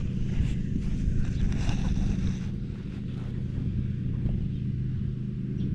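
An engine hums steadily and low throughout, with a few faint clicks and rustles over it.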